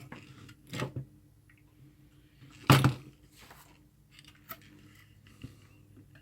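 Handling noise on a workbench: a short rustle just under a second in, one loud knock or clatter about three seconds in, then a few faint clicks.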